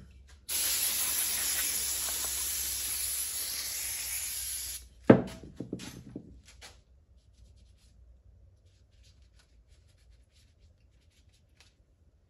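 Aerosol can of brake parts cleaner spraying in one steady hiss for about four seconds, cleaning a jet ski carburetor body. It cuts off, and a sharp knock follows with a few light clicks.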